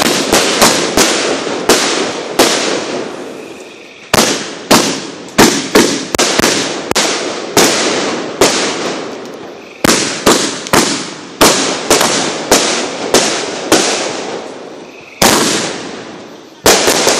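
Consumer fireworks going off in a rapid barrage: dozens of sharp bangs, several a second, each trailing off in echo and crackle, coming in bursts with short lulls between, like a multi-shot cake firing.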